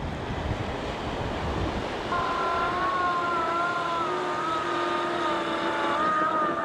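Twin motors of an R/C model plane whining in flight, their pitch wavering slightly as it passes. The whine comes in about two seconds in, over wind buffeting the microphone.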